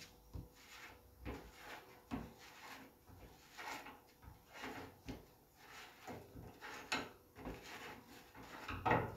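Hot steel vent cap being worked loose on a steel-drum smoker's lid: a string of short, irregular metal scrapes and light knocks.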